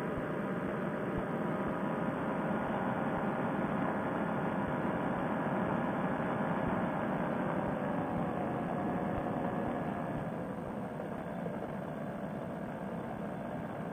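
Fresh Breeze Monster paramotor engine running steadily in flight. About ten seconds in it drops a little in pitch and level as it is throttled back for the descent to land.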